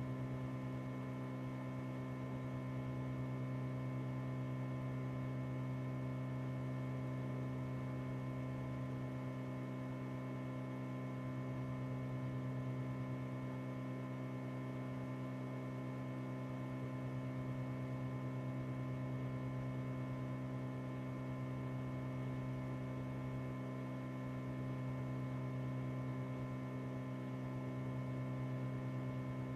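Steady electrical mains hum, a buzz of several unchanging tones strongest low down, with faint hiss and no other sound.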